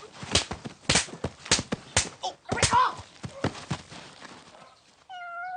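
A quick run of sharp slaps, about four a second, fading out over the first few seconds. Near the end comes a short, slightly wavering held tone.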